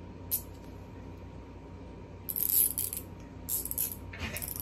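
A small plastic fidget toy being twisted and worked in the hands: a single click early, then three short scratchy bursts of plastic rubbing and clicking in the second half, the loudest about halfway through.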